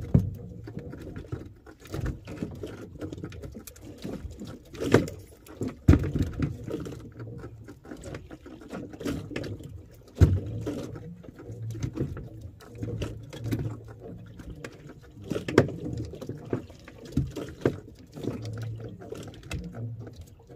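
Fishing handline being hauled in hand over hand in a small boat: irregular knocks and rubbing as the line and hands work against the hull, over a low rumble that comes and goes.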